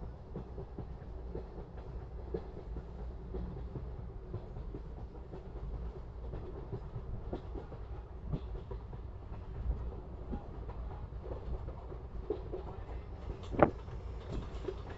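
Passenger train running along the track, heard from inside the carriage: a steady low rumble of wheels on rail with scattered clicks, and one sharp loud clack near the end.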